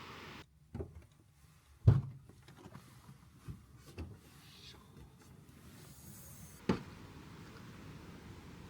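Five knocks and clunks of things being handled, the loudest about two seconds in. A steady hiss cuts out just before the first knock and comes back near the end.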